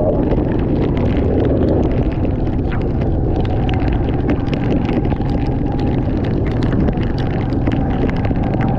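Heavy monsoon rain pouring down: a dense, steady roar with a constant patter of sharp drop hits.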